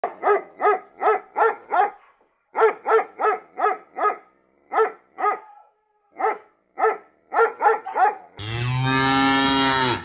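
A Boston Terrier barking in quick runs of short barks, with brief pauses between the runs. About a second and a half from the end, a cow lets out one long, low moo.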